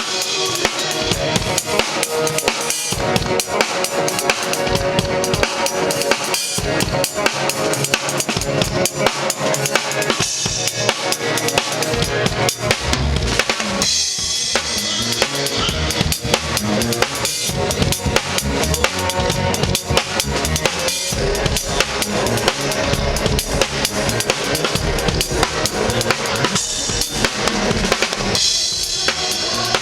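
A drum kit played continuously with dense, rapid strokes on bass drum, snare and cymbals, over other pitched band instruments, during a live band sound check.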